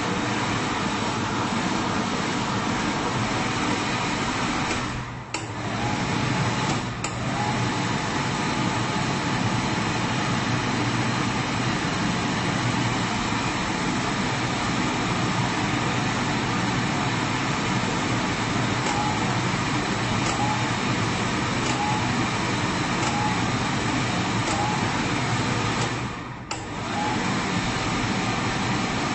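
Automatic hand dryer blowing a loud, steady rush of air. The blast drops out briefly twice, about five seconds in and again near the end, and comes straight back.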